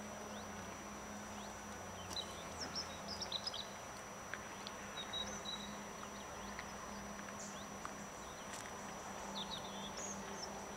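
Small birds chirping with short, scattered calls over a faint outdoor background, with a steady low hum and a thin steady high whine.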